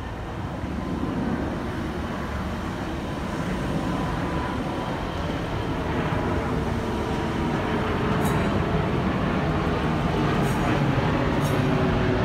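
Virgin Trains Class 390 Pendolino electric train approaching, its running noise and steady motor hum growing louder throughout. A few short high ticks come near the end.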